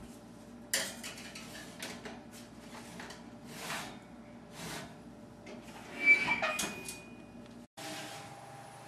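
Wall oven being opened and a foil-lined metal baking sheet of vegetables slid onto the oven rack: a series of scrapes and clatters of metal on metal. The loudest clank, with a brief metallic ring, comes about six seconds in.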